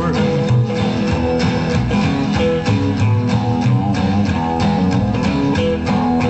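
Rockabilly band playing an instrumental stretch of a song, guitar to the fore over a quick, steady beat.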